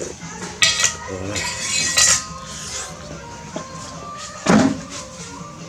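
Cutlery clinking against dishes: three sharp clinks, each with a short ringing tail, spread over a few seconds.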